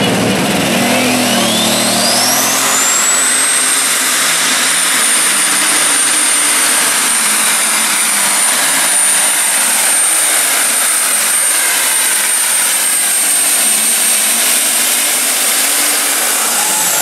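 Super stock pulling tractor, a blue New Holland, running flat out while dragging the weight sled. Its turbocharger whine rises steeply over the first few seconds, holds at a high steady pitch through the pull, then falls away near the end as the pull ends.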